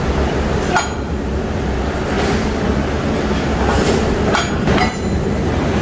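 A sledgehammer striking steel bars: several sharp, ringing metal clangs, a few seconds apart early on and then two in quick succession near the end. Under them runs the steady low hum of rolling-mill machinery.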